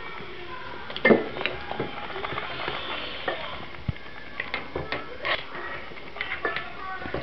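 A cat biting and chewing on plastic toothbrushes: irregular clicks and taps of teeth and brush handles, the loudest about a second in.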